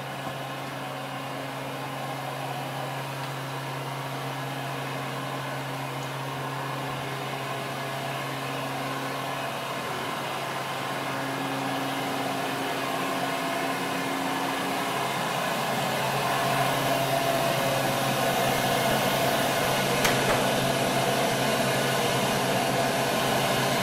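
Steady machine hum with a rushing, fan-like air noise, growing slowly louder.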